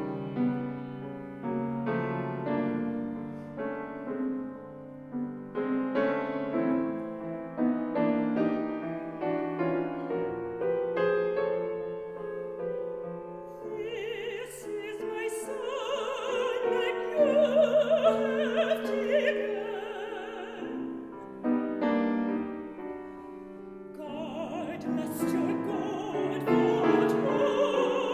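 Grand piano playing an art-song introduction alone, then a mezzo-soprano enters with a classical operatic voice and vibrato about halfway through, accompanied by the piano. Her phrase breaks off for a short piano passage before she sings again near the end.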